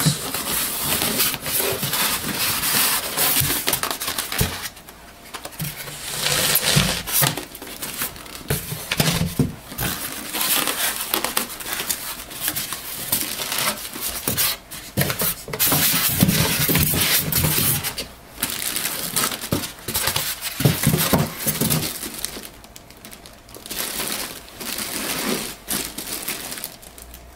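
Packing material being handled: styrofoam end caps rubbing against cardboard and a scanner's plastic bag crinkling, in irregular bursts with a few short pauses.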